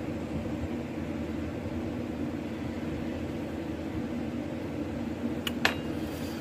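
Steady mechanical hum of a running electric machine, with a held low tone. Two sharp clicks close together near the end.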